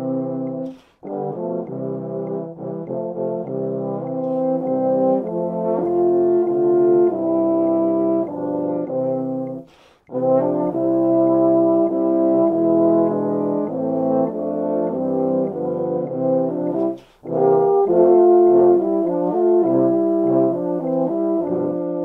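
Four baritone horns playing a hymn tune in four-part harmony: sustained chords moving note by note, with short breaks between phrases about one, ten and seventeen seconds in.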